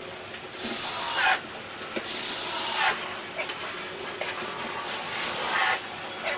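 Cordless drill driving screws into a wooden beam, in three bursts of under a second each, about a second in, at two seconds and at five seconds.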